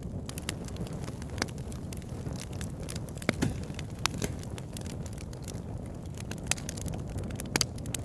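Firewood logs burning in a campfire: a steady low rumble of flames with irregular crackling, and a few louder pops and snaps.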